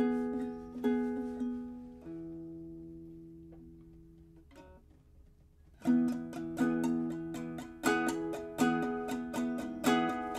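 Strummed acoustic string instrument playing chords. A few strums, then a chord is left to ring and die away, and strumming starts again louder about six seconds in.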